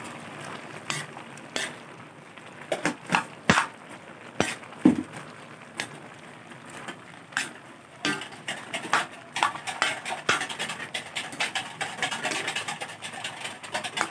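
Metal ladle scraping and clinking against a wok while vegetables are stirred, in irregular knocks that come thicker from about eight seconds in.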